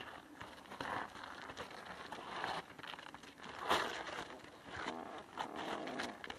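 Footsteps of dogs and a person crunching and scraping through packed snow on wooden boardwalk planks, a string of uneven crunches, the loudest a little before the middle.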